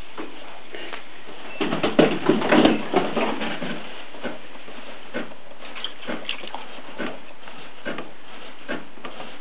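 Hands working a lump of clay on a potter's wheel: a quick run of irregular slaps and knocks about two seconds in, then scattered soft knocks.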